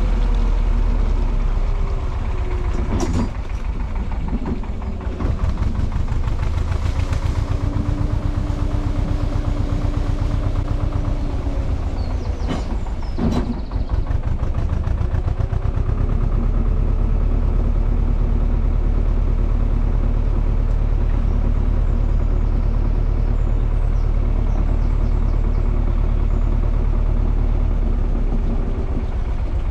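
Narrowboat's diesel engine running at varying throttle while reversing: its low throb drops about two seconds in, comes back up around halfway and eases near the end, with revs gliding between. Two sharp knocks come about three and thirteen seconds in.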